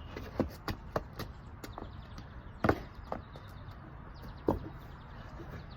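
Irregular sharp knocks and clicks, about seven over the stretch, the strongest near a second apart early on and again in the middle, over a low steady background hum.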